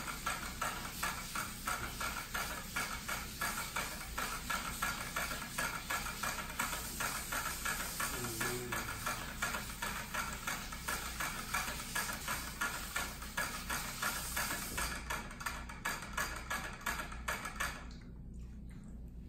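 Shih Tzu drinking from the metal nozzle of a dog water bottle: quick, even licks with wet ticking, about three a second, stopping near the end.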